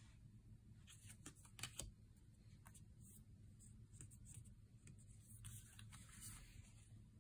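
Faint handling of oracle cards: light taps and clicks of the cards being set down, a few sharper ones about one and a half to two seconds in, then a soft sliding rustle as the cards are spread across the deck about five and a half seconds in.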